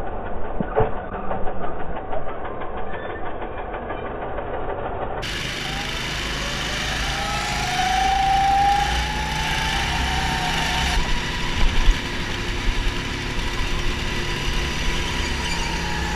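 Go-kart engines running as the karts lap the track, with a few sharp knocks in the first two seconds. From about five seconds in, the kart engine is heard onboard, with a whine near the middle that rises slightly and then falls.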